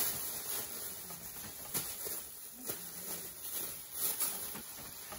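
Thin plastic grocery bag rustling and crinkling as hands rummage inside it, with irregular sharp crackles.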